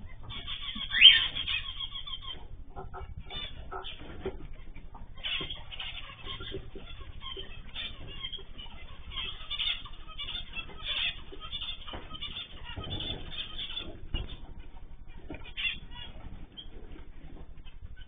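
Aviary cage birds, canaries and other small finches, chirping and calling over one another, with one loud rising call about a second in. A steady low hum runs underneath.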